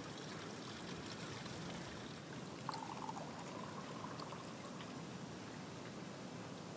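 Tea being poured in a thin steady stream into small pear-shaped glass tea glasses, with a few faint clicks.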